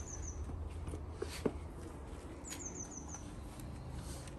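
A small bird singing in short, high phrases: a quick falling run of about five chirps, heard near the start and again about two and a half seconds later. There is a faint single knock about a second and a half in.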